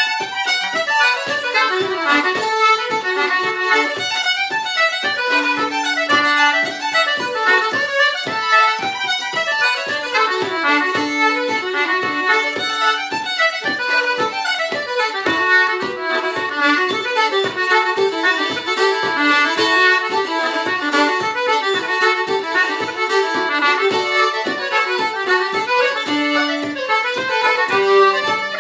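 Fiddle and concertina playing a traditional Irish reel together, a quick, unbroken run of notes.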